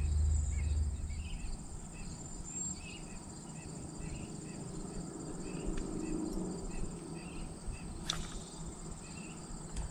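Insects trilling steadily in a continuous high, finely pulsed buzz, with a single sharp click about eight seconds in.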